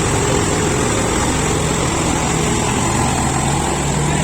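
A motor vehicle engine running steadily at an even pitch.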